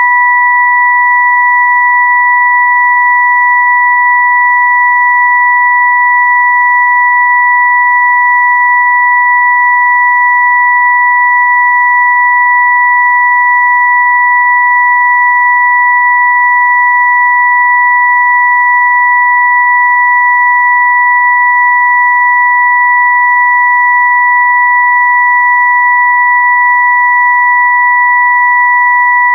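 Electronically generated pure tones from a sound-therapy 'frequency' track: two steady high tones, the upper an octave above the lower, held loud and unchanging without a break.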